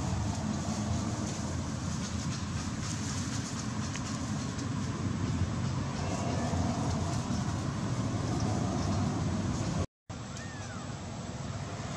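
Steady low rumbling background noise, even throughout, broken by a sudden split-second dropout about ten seconds in.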